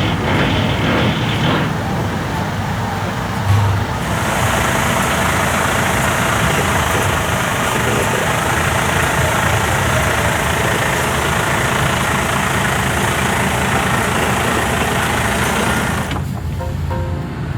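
Heavy truck's diesel engine running steadily, with a rushing hiss that comes in abruptly about four seconds in and cuts off near the end.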